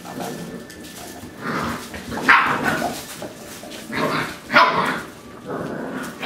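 Entlebucher Mountain Dog puppies barking in rough play as they wrestle over a toy, several short sharp barks with the loudest about two and a half and four and a half seconds in.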